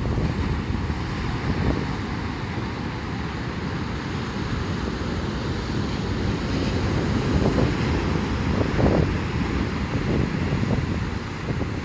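Strong typhoon wind gusting and buffeting the microphone over heavy surf on the shore.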